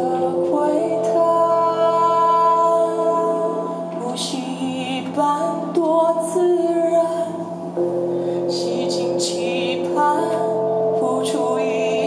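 Live band music: a woman sings over long, held synthesizer chords.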